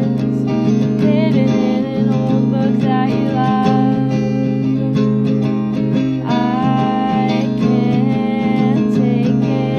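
An acoustic guitar playing chords, with a voice singing a melody over it.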